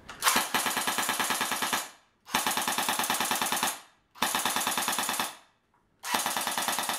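Snow Wolf PPSh-41 airsoft electric gun firing on full auto, its blowback bolt cycling with each shot: four bursts of one to two seconds each, a rapid, even rattle of shots, with short pauses between them.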